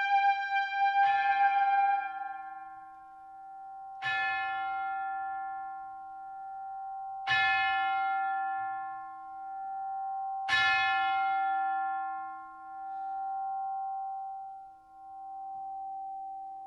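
A held brass band chord fades out about two seconds in. Over it, tubular bells toll four times, about three seconds apart, each stroke ringing on into the next.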